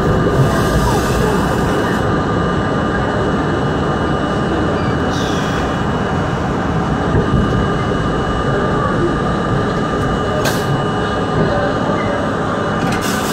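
New York City subway train running along an elevated steel line, heard from inside the car: a steady rumble of wheels and running gear with a faint constant whine.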